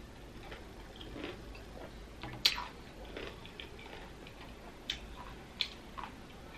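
Close-up ASMR chewing of a crunchy whole pickle: a few sharp, wet crunches as it is bitten down, the loudest about two and a half seconds in and three more in the last two seconds.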